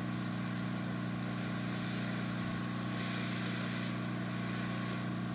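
Hot air rework station running: a steady hum with a constant hiss, unchanging while it heats the solder joint.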